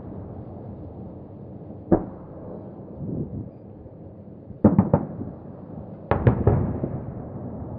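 Distant fireworks bursting. One bang comes about two seconds in, then three quick bangs near the middle, then another cluster of three that trails off in a rolling echo.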